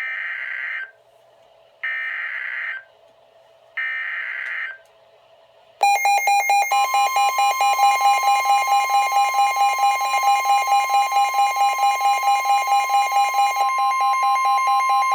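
Three short, raspy bursts of EAS/SAME digital header data, about a second apart, come from a NOAA weather radio. Then a loud alert sounds: the weather radio's pulsing alarm beeps about four times a second over the steady 1050 Hz warning alarm tone. Together they signal an incoming severe weather warning for the listening area.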